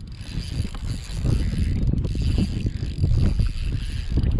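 Fishing kayak's pedal drive being pedalled, a mechanical churning and creaking that pulses about once a second over low rumble of water and hull movement.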